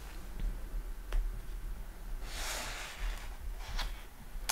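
Fingers handling the paper pages of an open book: a few light taps and a soft papery rustle about halfway through, over a low hum.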